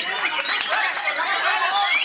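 White-rumped shama singing, a rapid run of varied whistled and warbled phrases, over a dense background of other birdsong and voices.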